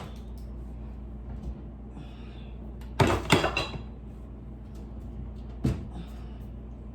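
Containers and items being handled while a refrigerator is cleared out: a short clatter of several knocks about three seconds in and a single knock near six seconds. A steady low hum runs underneath.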